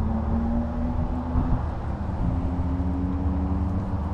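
A steady low mechanical hum, like a motor running, its pitch creeping up slightly and breaking off briefly about one and a half seconds in before carrying on.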